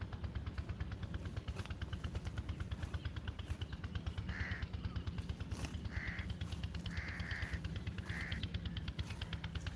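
A crow cawing about five times in the second half, short hoarse caws with two close together, over a steady, fast, low throbbing in the background.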